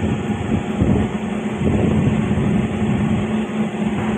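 Steady low rumble of a moving train heard from on board, with a constant hum underneath.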